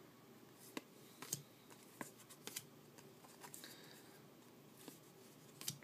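2012 Bowman baseball cards being flipped through by hand: faint light clicks and slides of card stock against card, about half a dozen scattered snaps.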